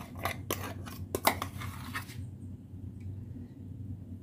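A metal spoon scraping thick ground paste out of a steel mixer-grinder jar and tapping it into a plastic bowl: a quick run of scrapes and clicks over the first two seconds, then only a low hum.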